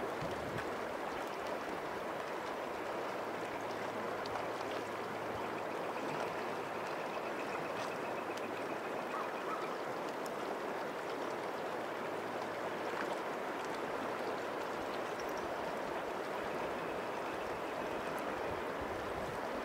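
River water running steadily, an even, unbroken rush of moving water.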